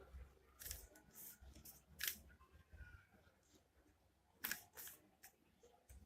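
Faint, irregular plastic clicks of a Rubik's cube's layers being turned by hand, a few separate snaps with a pair near the end.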